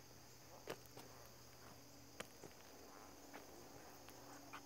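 Near silence with a faint steady background and a few soft ticks, likely footsteps on pavement.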